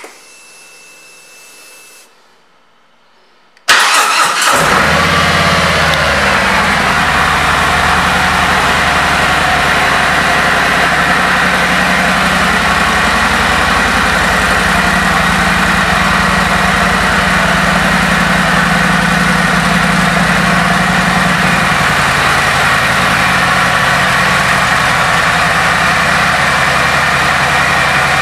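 2017 Harley-Davidson Ultra Classic's Milwaukee-Eight 107 V-twin with an S&S exhaust being started. A click and a faint hum for about two seconds, then the engine fires about four seconds in, its speed settling down over the next couple of seconds into a steady idle.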